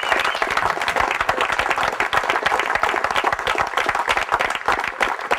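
A small crowd clapping and applauding steadily.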